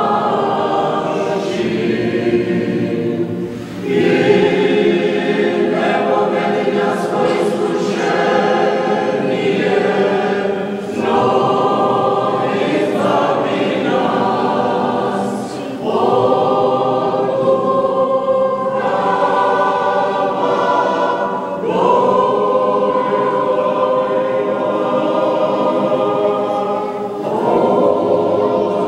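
Congregation singing an unaccompanied Serbian Orthodox liturgical chant in phrases of long held notes, with a short breath between phrases every few seconds.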